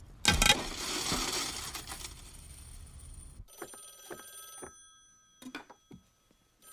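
Payphone being used: a loud clatter of handling about a quarter second in, then a quick string of clicks and touch-tone beeps as a number is keyed in.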